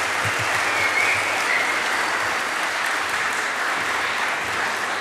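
A large audience clapping steadily, welcoming a speaker to the stage.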